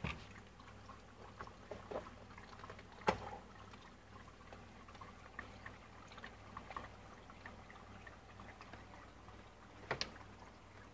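A dog eating: scattered small wet clicks and smacks of chewing and licking, with a sharper click about three seconds in and another near the end.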